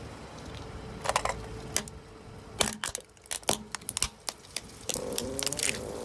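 A car tyre crushing a small hard-plastic toy cup: the plastic cracks and snaps in a series of sharp cracks spread over several seconds, the loudest about two and a half seconds in.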